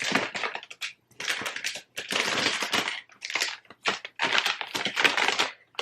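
Plastic snack bags crinkling as they are handled, in several rustling bursts.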